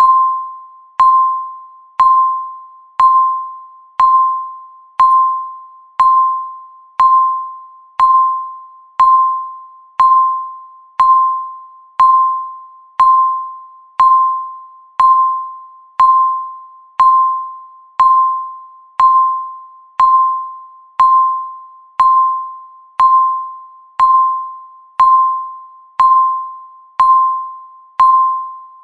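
Countdown timer's tick sound: a short electronic beep near 1 kHz, sharp at the start and fading quickly, once every second as the timer counts down.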